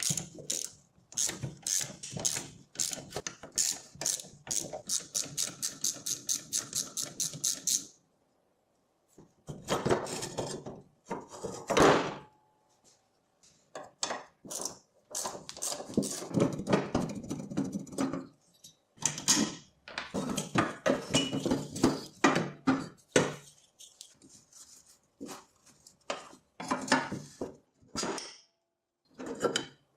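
Hand tools at work on the mini dirt bike's metal parts during disassembly: a run of rapid, evenly spaced clicks for about the first eight seconds, then bouts of scraping and clattering of metal parts being handled and set down.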